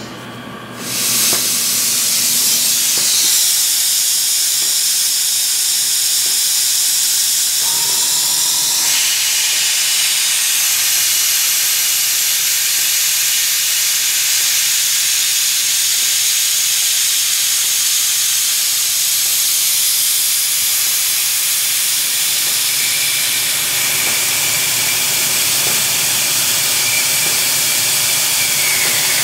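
Coolant spray hissing loudly and steadily at the cutting tool of a Hardinge HLV CNC lathe, switched on about a second in, while the lathe bores out a rifle barrel's chamber.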